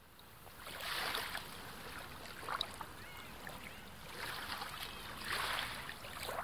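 Water lapping and sloshing in irregular swells about once a second, fading in at the start.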